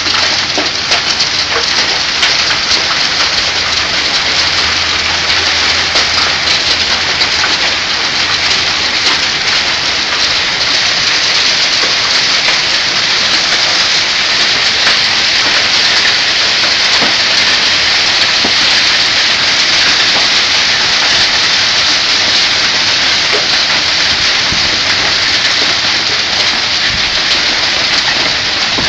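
Hail and heavy rain coming down on a yard: a loud, steady hiss of falling water with many small hits of hailstones ticking through it.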